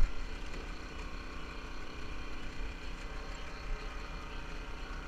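A boat's engine running steadily, a constant hum with several steady tones in it, with a brief knock right at the start.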